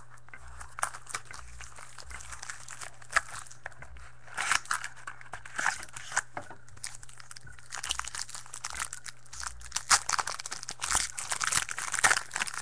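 Foil wrapper of a pack of baseball trading cards being torn open and crinkled by hand: irregular crackling and crinkling, busiest in the last few seconds.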